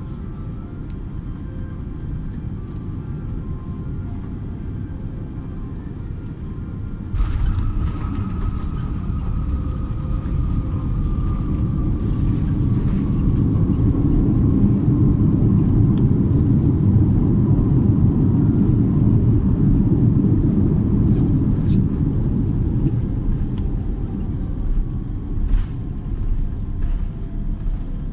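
Cabin noise of a Boeing 787-10 touching down: a steady low rumble, a sudden jolt about seven seconds in, then a deeper rumble that swells for several seconds and eases off near the end as the jet slows on the runway. A faint tone falls slowly in pitch after the touchdown.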